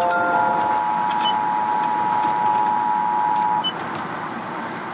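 Steady road and engine noise inside a moving car, with a steady two-note electronic alert tone that cuts off about three and a half seconds in.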